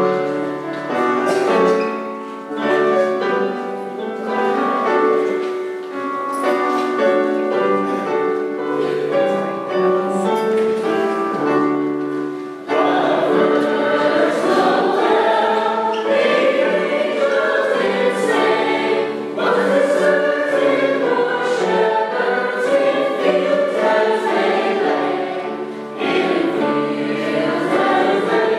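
School choir of boys and girls singing a song together, growing louder about thirteen seconds in.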